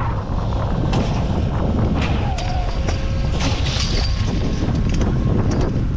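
Strong wind buffeting the microphone with a heavy rumble, over which a handful of sharp clacks and knocks sound from the chairlift and gear.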